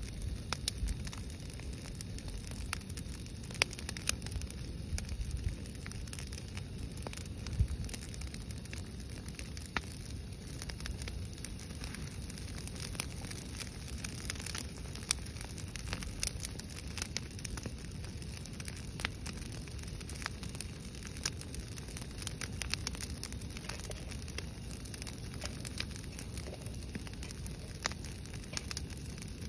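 Brush-pile fire of dry branches burning: constant crackling and popping, with a few louder pops standing out, over a steady low rumble.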